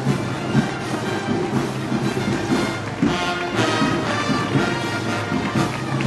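Brass band playing festival music over a steady drum beat.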